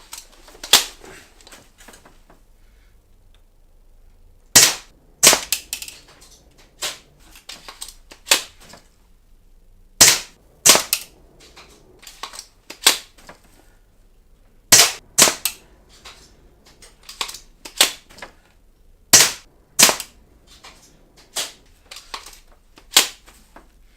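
Classic Army CA870 spring-powered pump-action airsoft shotgun firing single BBs, a sharp snap every few seconds, with clacks between shots as the wooden pump arm is worked to cock it.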